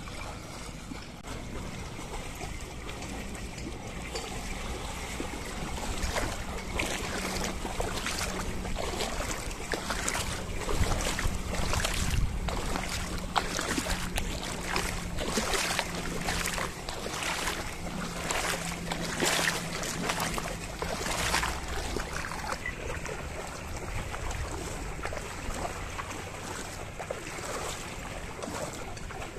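A pair of bullocks and a plough wading through a flooded paddy field: hooves and plough sloshing and splashing in the muddy water. The splashes come roughly once a second and are loudest through the middle.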